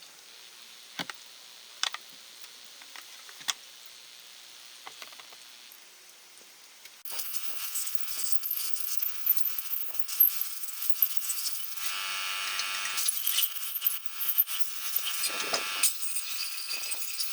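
Small metal tools and parts clinking now and then. About seven seconds in, a steady high hiss with faint tones sets in, along with rapid metallic clinking and rattling.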